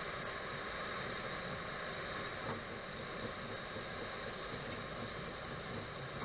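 Steady rushing background noise inside a Boeing 737 cockpit, with a faint hum from the parked airliner's airflow and equipment.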